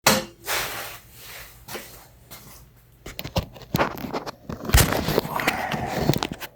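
Irregular knocks and clatter with rustling noise in between, starting abruptly and growing busier and louder over the last few seconds.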